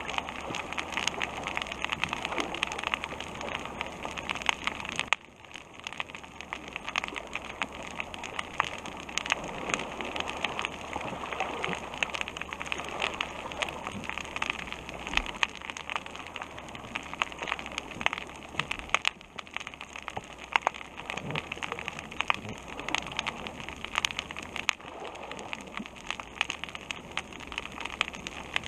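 Dense underwater crackle of countless sharp clicks, the snapping-shrimp chorus of a reef heard through a submerged camera, dipping briefly about five seconds in.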